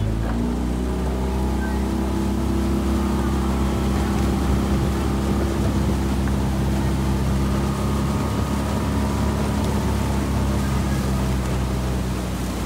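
A motorboat's engine running steadily, its pitch rising in the first second as it speeds up, then holding, over a low rumble of wind and water.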